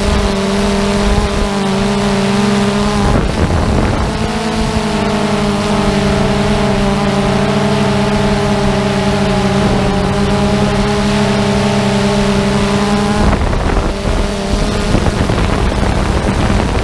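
Multirotor drone's motors and propellers humming steadily, several pitches at once, heard from the camera on the drone itself. Wind buffets the microphone about three seconds in and again from about thirteen seconds on, partly covering the hum.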